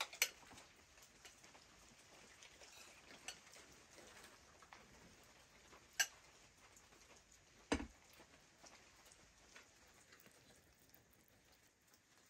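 Spoons clinking and scraping against metal serving plates during a meal: a few sharp clicks spaced seconds apart, one with a duller knock, over a faint steady background.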